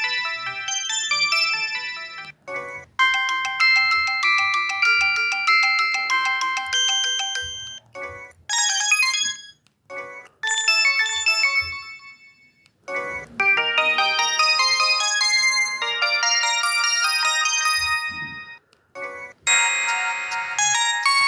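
Samsung SGH-J700 mobile phone ringtones played one after another: about six short electronic polyphonic melodies, each separated by a brief pause.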